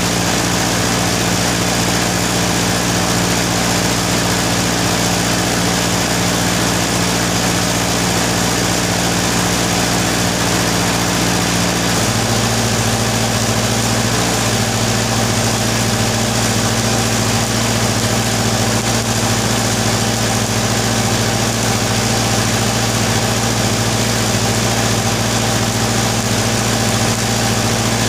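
Steady machine hum from the arc-welding set during stick welding on a tractor track roller, with a hiss above it. About twelve seconds in the hum changes to a lower, steadier tone as the welding gets under way.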